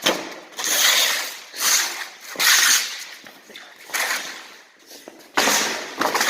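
A box being beaten up: about five separate bursts of crunching and banging, each under a second long.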